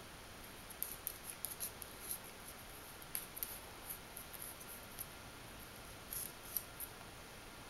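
A kitten's claws ticking and scrabbling on a slick floor: a run of faint, irregular light ticks that stops about two-thirds of the way through.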